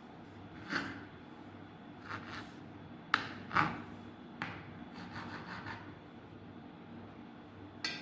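A knife cutting and trimming the edges of layered samosa dough on a board: a handful of short, uneven knocks and scrapes.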